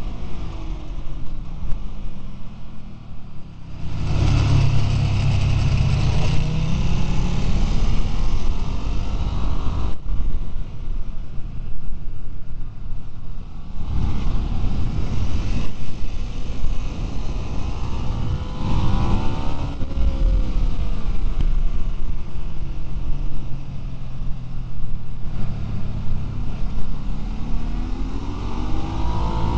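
Ducati V-twin sport bike engine under hard acceleration and deceleration on track, its pitch rising through the revs, breaking off at gear changes and throttle closes, then climbing again, with steady wind and road noise on the bike-mounted microphone.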